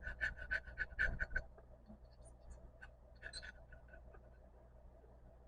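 Quick back-and-forth scraping of a tool's edge on a metal fender badge, peeling off dried old paint. A fast run of strokes comes in the first second and a half, a shorter burst about three seconds in, then a few light scrapes.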